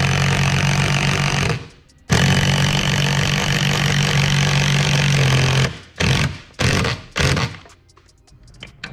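Power drill driving the mounting screws of a garage door opener's cable tension monitor into wood: two long runs of the motor, then three short bursts.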